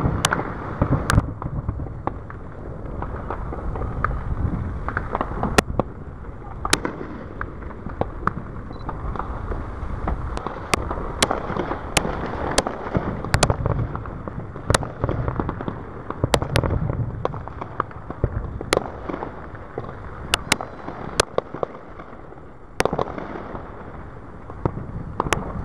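Aerial fireworks bursting: a string of sharp, unevenly spaced reports, roughly one a second, over a steady low rumble.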